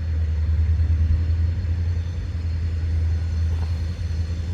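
Steady low engine rumble with no horn.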